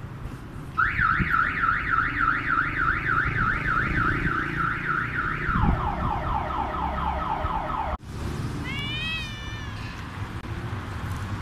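A car alarm going off: a rapid rising-and-falling warble about four times a second, then a faster, lower-pitched warble that cuts off suddenly about eight seconds in. Soon after, a cat gives one short meow.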